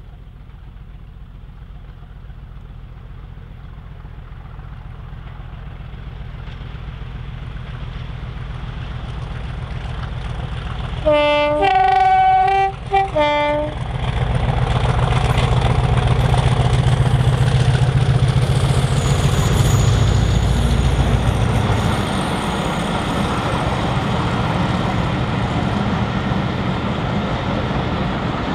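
Class 50 diesel locomotive's English Electric 16-cylinder engine growing steadily louder as the train approaches. About eleven seconds in it sounds its two-tone horn for about two and a half seconds, and the heavy engine drone and rail noise of the train passing close by follow.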